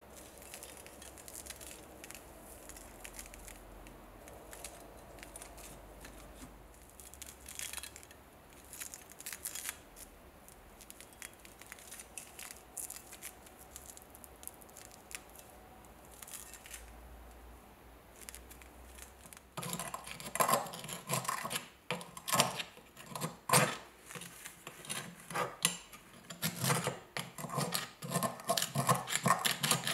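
Soft rubbing of gloved hands turning a rust-caked steel bayonet. About two-thirds of the way in, a flat-bladed tool starts scraping and chipping thick rust scale off the bayonet's hilt: a quick, uneven run of louder scrapes and clicks.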